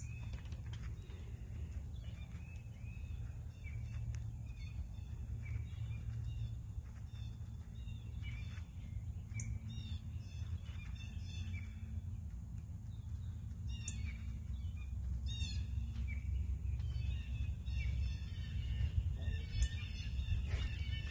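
Small songbirds chirping and calling at scattered moments, busier near the end, over a steady low rumble.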